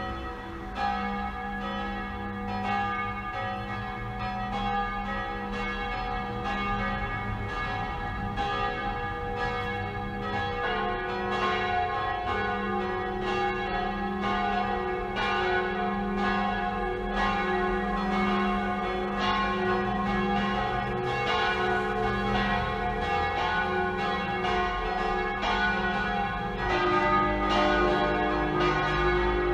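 Several large swinging bronze church bells ringing together in a full peal, their strikes overlapping over long ringing tones. The blend of bells changes about ten seconds in and again near the end.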